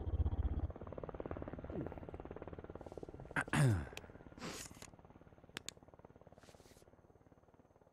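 A low, rapidly fluttering rumble that fades away, with two falling swoops, then two sharp clicks a little past halfway as buttons on a Yamaha DX7 synthesizer are pressed.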